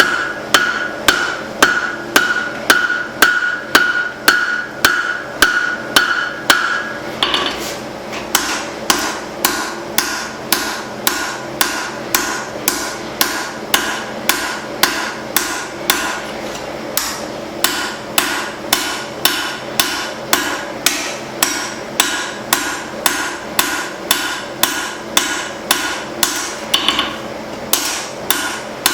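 Hammer blows on hot leaf-spring steel over an anvil, a steady run of about two strikes a second. The anvil rings with a high tone between blows for the first several seconds, and the ringing comes back now and then later.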